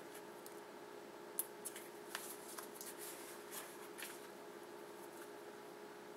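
Faint clicks and rustling of hands handling a brake caliper slide pin and a tube of silicone grease, with a few sharp ticks, over a steady faint hum.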